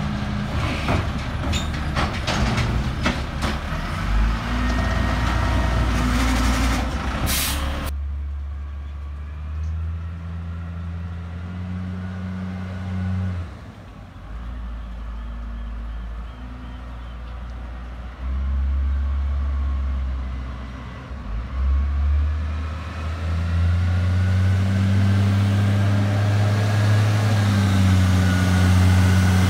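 Peterbilt garbage truck's engine running as it pulls away, with a hiss of its air brakes about seven seconds in. The engine grows louder again near the end as the truck comes back.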